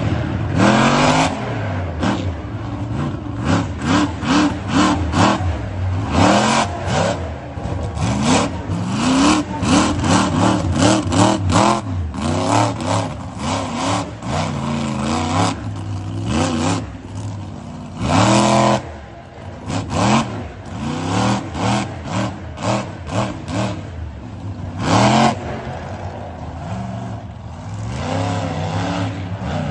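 Monster truck engine revving hard over and over, each throttle burst rising and falling in pitch, with two especially loud bursts about eighteen and twenty-five seconds in.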